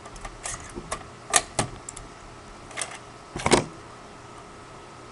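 Handling noise: about six irregular sharp clicks and clacks of hard parts knocked and moved. Two louder ones come about a second and a half in and three and a half seconds in.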